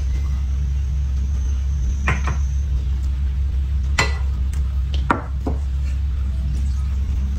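A few sharp clinks of chopsticks and a plate against a metal noodle bowl as peeled eggs are pushed into it, over a steady low hum.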